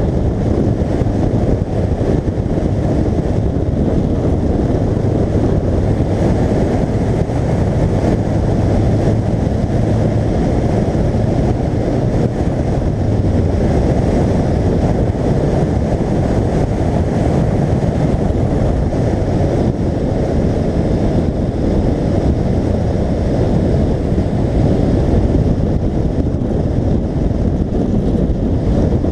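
Wind rushing over the microphone of a camera mounted outside a car at track speed: a loud, steady, low roar, with the car's engine note faint beneath it.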